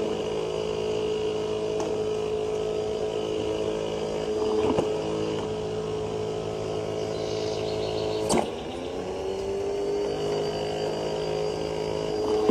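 Automatic dog ball launcher's motor running with a steady whine, with a few light knocks. About two-thirds of the way through comes a sharp knock as a ball is fired, and the motor's pitch sags and then climbs back.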